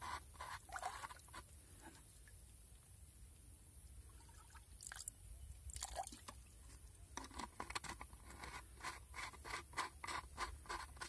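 Faint, irregular scrapes and clicks of a plastic bottle being handled over a muddy eel hole, in clusters near the start, about five seconds in, and more densely in the last few seconds.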